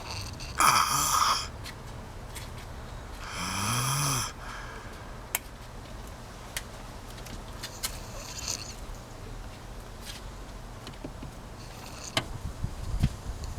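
Snoring: two loud, rasping snores, the first near the start and the second about three seconds later with a low sliding tone in it, followed by two fainter snores later on.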